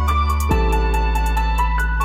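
Background music: a calm electronic track with sustained bass chords that change about half a second in, a simple high melody and a steady light beat.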